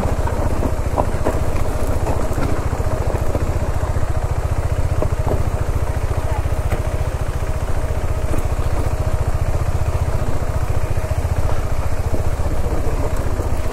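Royal Enfield Himalayan 450's liquid-cooled single-cylinder engine running steadily at low revs, its radiator cooling fan switched on because the engine is hot.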